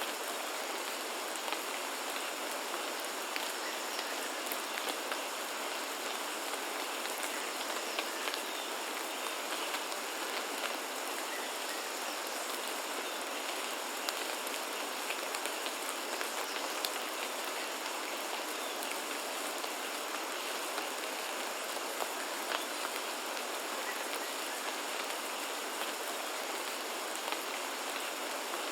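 Steady rainfall, a dense even hiss with scattered louder drop ticks, over a faint steady high-pitched tone.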